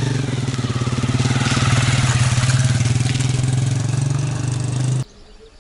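A small motorcycle engine runs steadily as the bike rides past at low speed, growing louder toward the middle and then easing as it moves away. The sound cuts off abruptly near the end.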